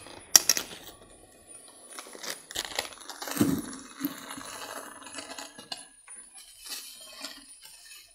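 Salt poured from a plastic packet into an empty plastic bucket: a grainy hiss of salt grains hitting the bucket, with crinkling of the packet and scattered small clicks. A sharp clink about half a second in.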